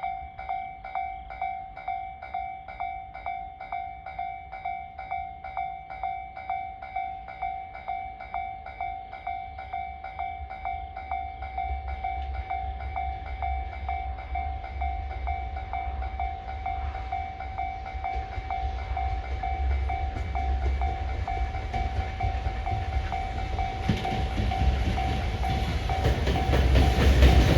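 Japanese level-crossing alarm ringing its rapid repeated ding, about two strokes a second. A freight train's rumble grows under it from about ten seconds in and gets loud near the end as the train reaches the crossing, drowning the bell.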